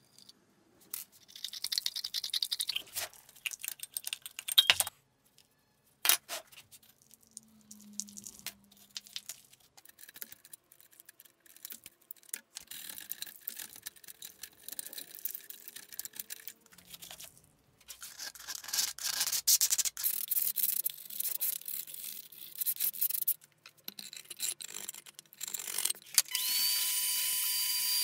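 A screwdriver prying and scraping at the rusty cast-iron casting of a geared-head drill press, in irregular scrapes and sharp metal clicks. Near the end a shop vacuum starts with a brief rising whine and runs steadily.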